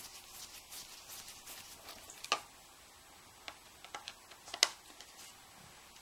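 Screwdriver working a screw on the metal cover plate of an unpowered vacuum motor under water: faint light ticking, then a handful of sharp separate metal clicks, the loudest a little past halfway.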